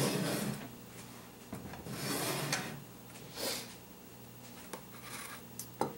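Kitchen containers and a spatula handled on a countertop: several short rubbing and scraping sounds, the loudest at the start, and a couple of light clicks near the end.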